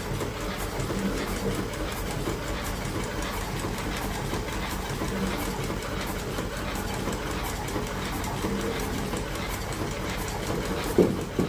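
Filling machine running steadily with a fast, even clicking from its mechanism, and one sharp knock near the end.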